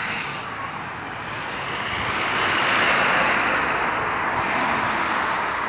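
Road traffic: a vehicle passing, a rushing noise that swells to a peak about three seconds in and then eases off.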